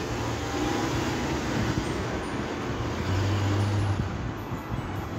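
Road traffic noise from passing cars, a steady rush with a low engine hum that swells for about a second past the middle.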